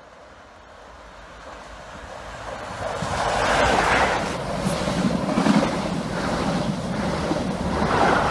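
Network Rail's yellow HST, the New Measurement Train, running through the station without stopping. It starts as a growing rumble on approach, then becomes a loud rush of power car and coaches passing close, swelling and easing several times as the vehicles go by.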